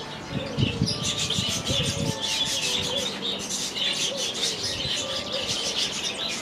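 Small aviary birds (Bourke's parakeets, Bengalese finches and canaries) chirping and twittering continuously, with a few lower calls in the first couple of seconds.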